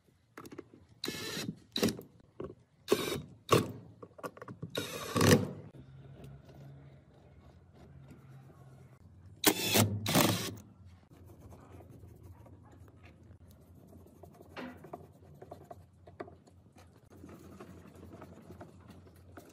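Cordless drill driving screws into a particleboard cabinet in short runs: five bursts in the first five or so seconds, then two more close together about ten seconds in, with faint handling sounds between.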